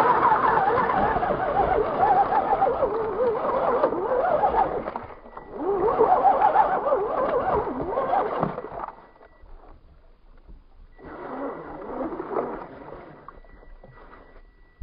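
Electric motor and gear drive of a radio-controlled Axial Wraith crawler whining in three throttle bursts, its pitch wavering up and down as the tyres churn through icy water and slush, with splashing. The first burst lasts about five seconds, the second about three, and a shorter, quieter one comes near the end.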